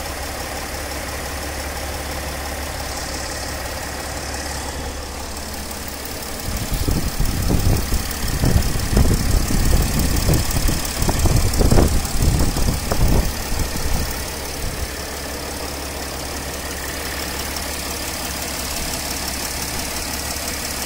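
Mercedes ML 350 CDI's V6 diesel engine idling steadily. From about six seconds in to about fourteen seconds in, loud, irregular low rumbling and thumps sit over the idle.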